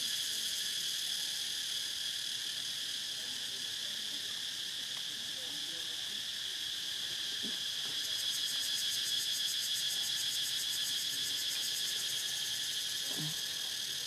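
Steady, high-pitched chorus of insects with a fast pulsing buzz.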